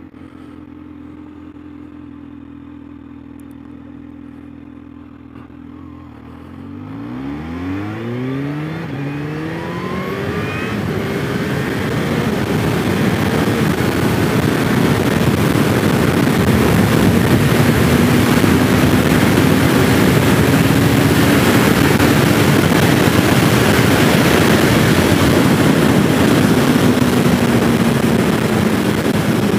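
Kawasaki Z H2's supercharged inline-four running steadily at low speed for about six seconds, then accelerating hard, its revs rising in two sweeps through the gears. After that it holds a steady note at high speed under loud wind noise on the helmet microphone.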